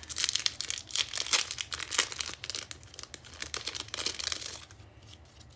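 Clear plastic packaging crinkling as a stack of paper die cuts is worked out of its sleeve by hand: a dense run of crackles that thins out near the end.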